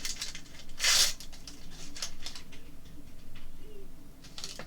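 Packaging rustling and crinkling as small doll pieces are unwrapped and handled, in short irregular bursts, loudest about a second in.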